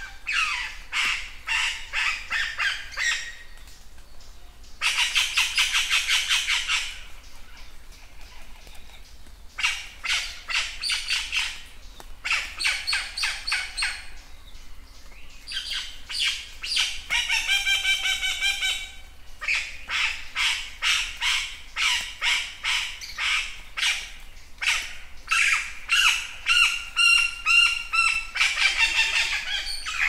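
Chachalaca calling: rapid runs of repeated harsh notes in bursts of one to three seconds, with short pauses between them.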